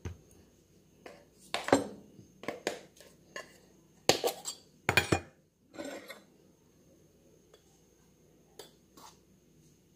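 A drinking glass and a metal tin of baking powder being handled on a counter: a quick series of clinks and knocks, then two lighter taps near the end.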